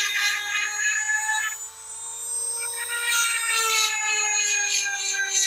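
Small motor of a cordless handheld chainsaw sharpener whining steadily as its grinding stone files the cutters of a saw chain, with a gritty grinding over it. The grinding stops a little after a second and a half in and picks up again about a second later while the motor keeps running.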